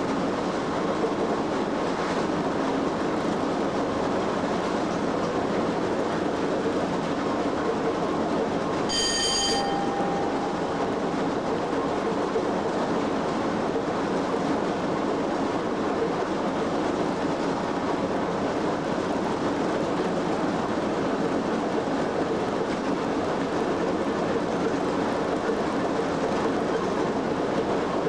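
Steady running noise heard inside the cab of Class 87 electric locomotive 87033 travelling at speed. About nine seconds in there is a short ringing ding.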